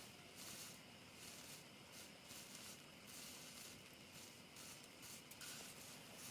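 Near silence with the faint, irregular crackle of a wood fire burning.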